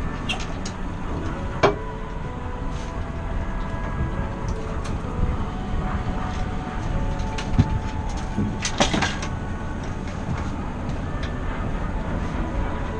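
Boat's outboard motor running steadily at low trolling speed, with a few sharp clicks and knocks on the boat, the loudest near the start and about two-thirds of the way through.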